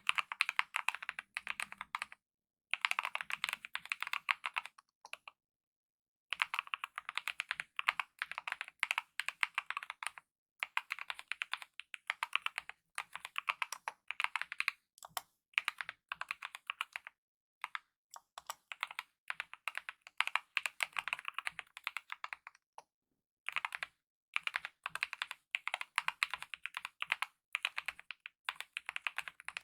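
Fast, continuous typing on a Kemove mechanical keyboard with lubed optical red linear switches and DSA-profile keycaps: runs of rapid key clicks lasting a few seconds each, broken by short pauses.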